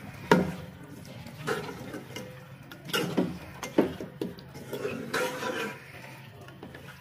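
Metal spoon stirring a thick keema-and-pea curry in a metal pot, scraping through the food and knocking against the pot several times; the loudest knock comes just after the start.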